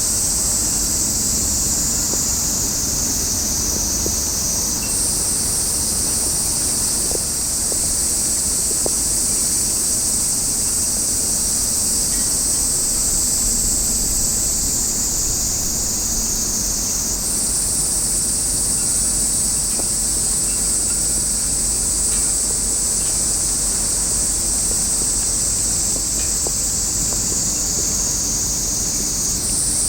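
Cicadas droning in a steady high buzz, its pitch slowly sinking and then jumping back up about every twelve seconds, over a low rumble.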